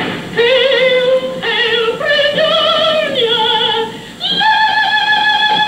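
A woman singing in operatic style with a wide vibrato: several short wavering phrases, a brief break about four seconds in, then one long held high note.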